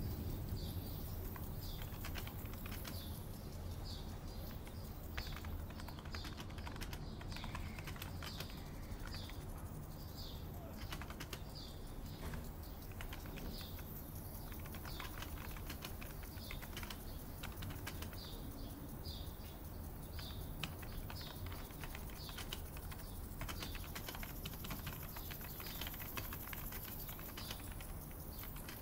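Typing on a computer keyboard, a steady run of key clicks, over a steady low hum. A bird chirps repeatedly in the background, a short high call recurring under a second apart.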